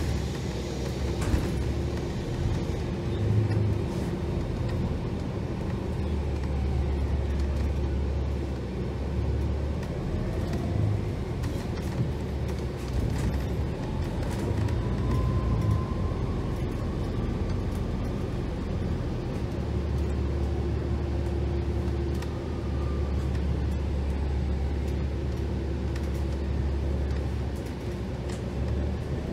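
Ride noise inside a New Flyer XDE60 hybrid articulated bus: a low diesel rumble that swells and eases, with the hybrid drive's electric whine rising as the bus speeds up, then sinking as it slows, and rising again near the end.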